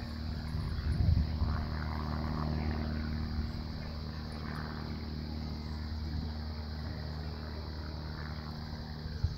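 A steady, low engine drone, with a brief gust of wind buffeting the microphone about a second in and a short knock near the end.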